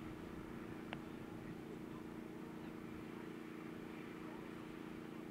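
Steady low motor hum with several fixed tones, with a single sharp click about a second in.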